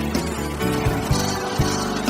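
Instrumental gospel band music with no singing: held bass and keyboard notes under a few sharp drum hits.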